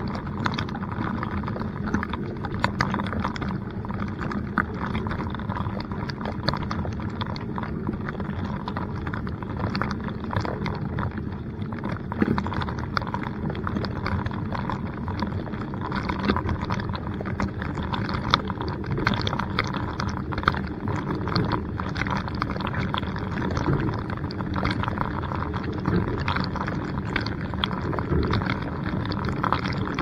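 Water spraying and splashing inside a running dishwasher during its wash cycle, with jets spattering against the camera housing and the dishes in quick, irregular patters over a steady low hum.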